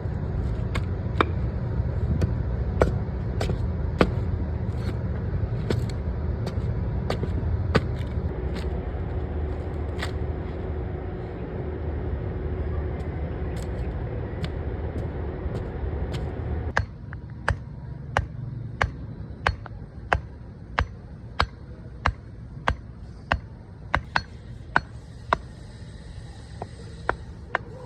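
Handmade wooden chirper making short, sharp chirps at a steady rate of about one and a half a second, over a low rumble that drops away about two-thirds of the way through.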